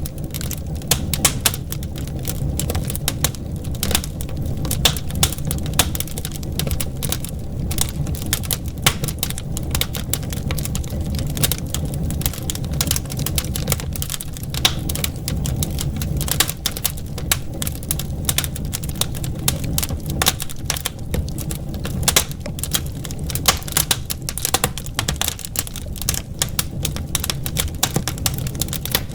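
Wood fire crackling in a fireplace: rapid, irregular snaps and pops over a steady low rumble of the flames.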